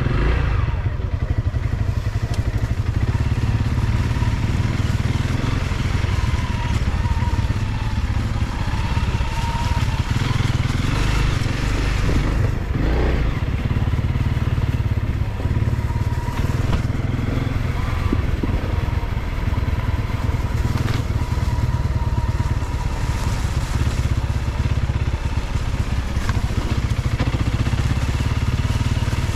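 Single-cylinder dual-sport dirt bike engine running under way on a rough trail, steady throughout, with a sharp knock about halfway through.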